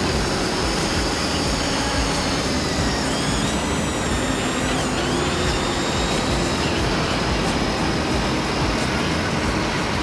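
Steady motor or engine noise with a thin high whine that rises and dips about midway.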